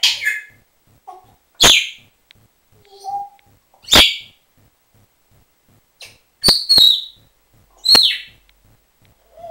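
African grey parrot calling: about six loud, sharp shrieks at uneven intervals, some ending in a short falling whistle, with two softer low notes between them.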